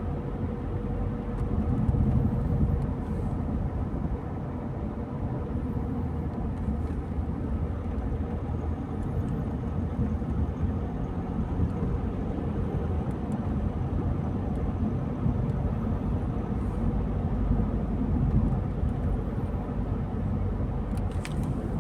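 A car driving along a road, with a steady low rumble of engine and tyre noise and a few faint clicks near the end.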